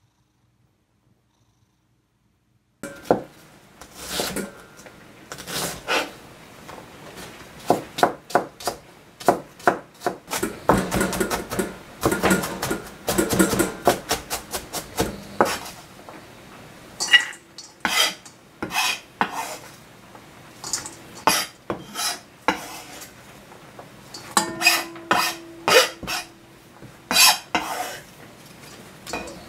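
Cookware and utensils clinking, knocking and scraping in quick, irregular strokes, thickest in a run near the middle. The first three seconds or so are near silence.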